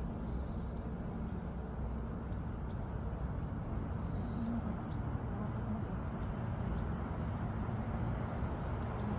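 Small birds chirping in the trees: many short, high-pitched chirps scattered throughout, over a steady low background rumble.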